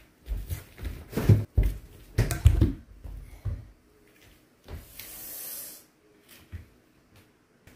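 Fruit and a plastic food container being set down by hand, a run of dull thumps and knocks, followed by a brief hiss about five seconds in.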